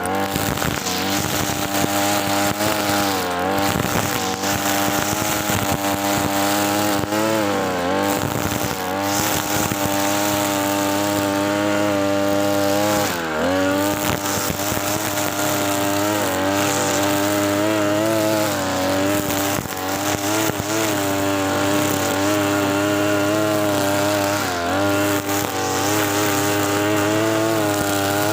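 TB43 two-stroke brush cutter with a trimmer head running at full throttle through thick grass. The engine pitch dips briefly several times as the line bites into the dense grass, then recovers.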